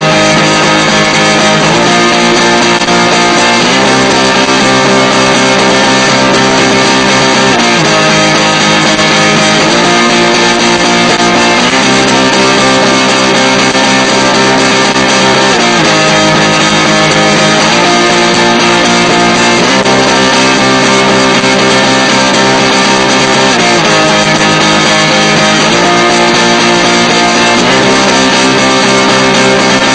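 Loud, compressed music with a guitar-like strummed sound. Sustained chords change in a repeating pattern every two to four seconds.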